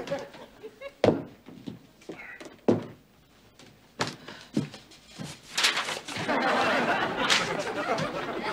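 A few slow, heavy footsteps thudding on wooden stairs, spaced a second or more apart, then a studio audience laughing for the last few seconds.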